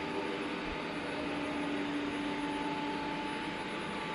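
Robot vacuum running: a steady whirring hum with a constant whine on top.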